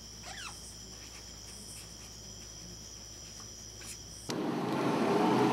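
A steady high-pitched whine with a faint squeak of a marker pen on sketchbook paper. About four seconds in it cuts abruptly to a loud rushing noise that builds.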